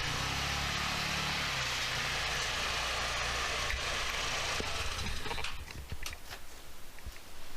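A motor vehicle's engine running with a steady hiss of road noise, which fades away about five seconds in, leaving a few faint clicks.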